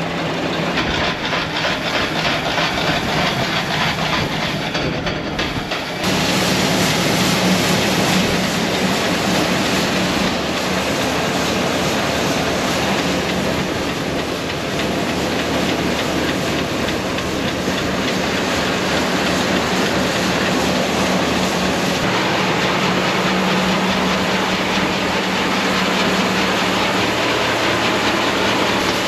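Grain auger and grinder-mixer running steadily while moving grain: a loud, even machine hum with a fine rattle. The sound changes abruptly about six seconds in.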